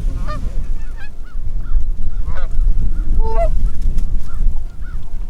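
Canada geese honking, with many short honks repeating throughout and a few louder, fuller honks mixed in, over a steady low rumble.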